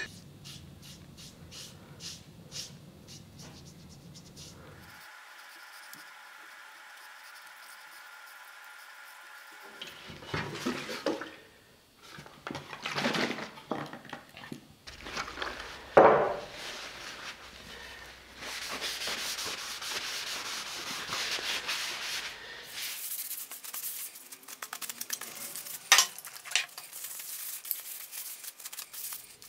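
A run of wood-finishing sounds on an oak axe handle: a foam brush rubbing on stain, Danish oil poured from a metal tin, and a rag rubbing over the handle. A few sharp clicks and knocks stand out, the loudest about a quarter of the way through the second half and near the end.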